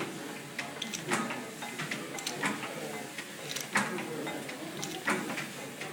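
Colbourn Cambridge stationary engine running, its large flywheel turning, with a sharp knock about every 1.3 seconds and lighter mechanical clatter and ticking in between.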